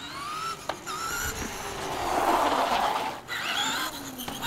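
Electric motor of a Traxxas Stampede RC truck whining up in pitch as it accelerates, in several rising runs. A louder rushing noise about two seconds in.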